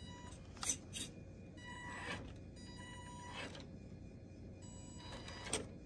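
Carisma SCA-1E RC rock crawler's small electric motor whining steadily at low throttle in two short spurts as it creeps over rock, with a few sharp clicks of tyres and chassis knocking on the stones.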